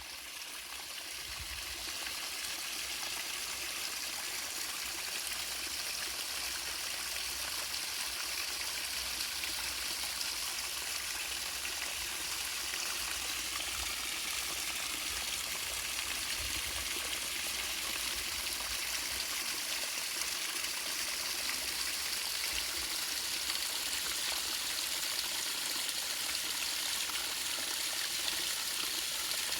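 Waterfall: water falling and splashing in a steady, even rush, fading in over the first couple of seconds.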